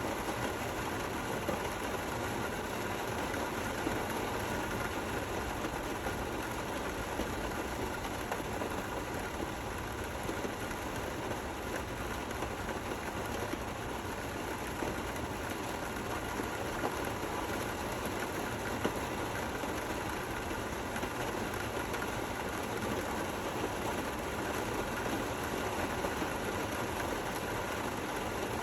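Steady rain falling, an even hiss with a few louder drop ticks here and there.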